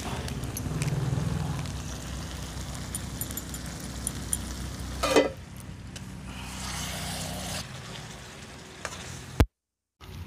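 Pointed gourd curry sizzling in a steel kadai while a metal spatula stirs it and scrapes the pan, with one sharp clank about halfway through. The sound cuts out briefly near the end.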